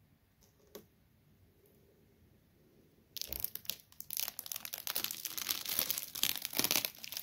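Plastic packaging being crinkled and torn off a new RC truck: a single click, then from about three seconds in a dense, continuous crackling and rustling of plastic.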